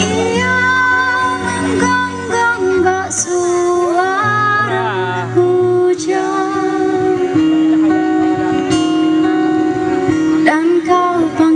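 A woman singing a slow song into a microphone, accompanied by two strummed acoustic guitars.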